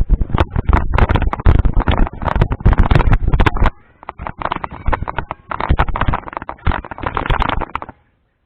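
Total impact wrench running in two long bursts of rapid hammering, with a short stop a little before halfway.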